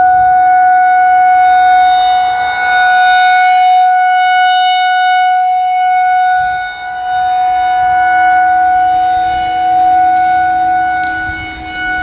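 Federal Signal 2001-SRNB rotating electromechanical siren sounding a steady full-alert tone. The pitch holds level while the loudness swells and fades as the horn rotates toward and away from the listener.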